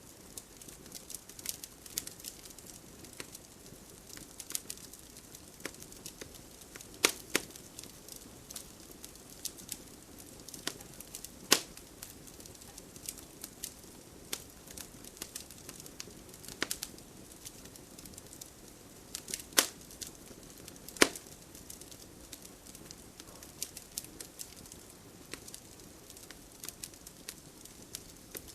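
Fireplace fire crackling: irregular sharp pops and snaps over a soft hiss, with a handful of louder pops scattered through.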